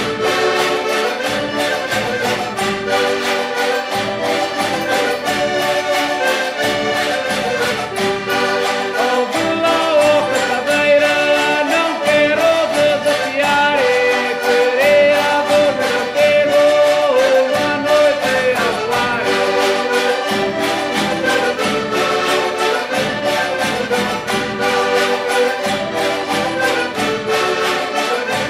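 Background music: an instrumental piece with a steady beat and a melody line.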